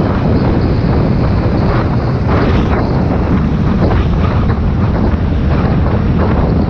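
Wind buffeting the microphone of a TVS Ntorq scooter rider at about 60 km/h, a loud steady low rush with gusty flutter, over the drone of the scooter and tyres on the road.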